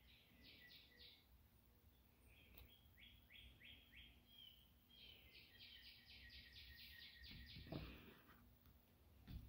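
Faint bird song: three runs of quick repeated high chirps, the last run the longest at about six notes a second. A soft low knock comes near the end of the last run.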